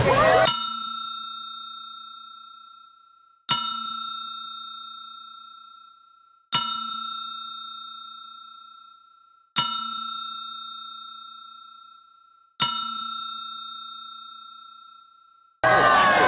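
A bell-like chime struck five times, evenly about every three seconds. Each strike rings out clearly and fades away before the next, with nothing else heard between them.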